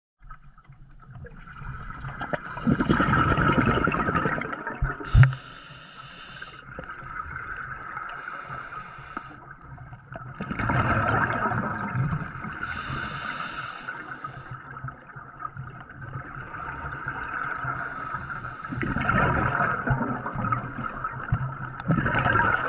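Scuba diver breathing underwater through an open-circuit regulator: a hiss on each inhale and a swell of bubbling on each exhale, three exhales about eight seconds apart, with a single sharp knock about five seconds in.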